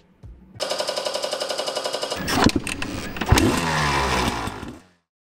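Motorcycle engine sound effect: the engine runs with a fast, even pulse, is revved hard about two seconds in, then dies away quickly near the end.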